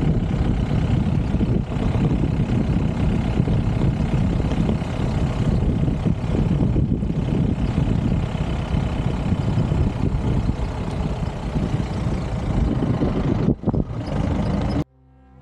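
Safari jeep driving along a park track: a steady engine and ride rumble, heaviest in the low range. It cuts off abruptly near the end, where music starts.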